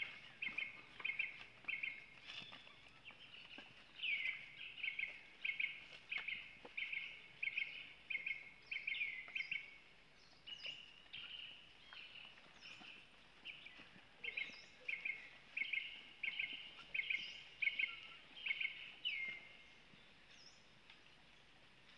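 A short, high chirping call repeated about twice a second in runs of several seconds, with pauses between the runs.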